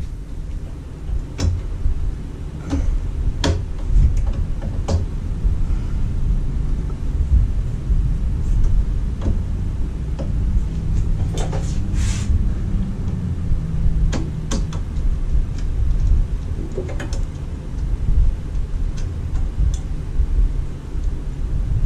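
Irregular clicks and knocks as a headlight is worked into its mounting behind a Jeep TJ's grille, over a steady low rumble.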